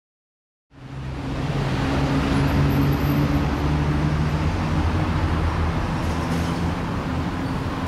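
Steady urban traffic noise with a low drone, fading in under a second in.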